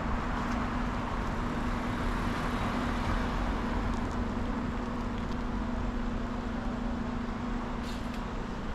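Steady road traffic on a wide city street, an even wash of tyre and engine noise with a continuous low hum; a sedan passes close by midway.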